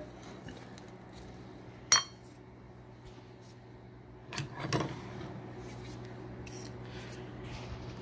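Metal probe thermometer knocking against a ceramic plate and countertop as it is handled: one sharp clack about two seconds in, then a short clatter around four and a half seconds, over a steady low hum.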